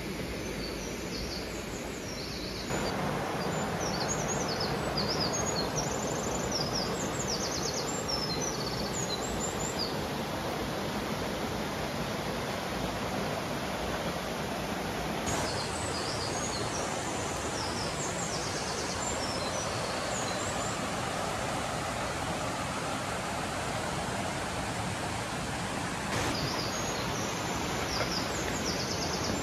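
Steady rush of water from a mountain stream, with small birds chirping high above it in several spells. The water noise steps up abruptly about three seconds in.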